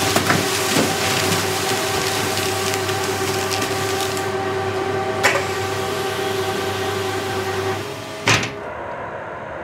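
Motorised conveyor belt running with a steady hum and a click about five seconds in as it carries parcels through a wall hatch; near the end it stops, and a metal hatch shutter shuts with a single loud thump.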